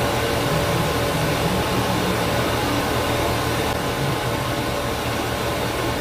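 Steady background hiss with a low hum and a faint, thin steady tone running through it; nothing starts or stops.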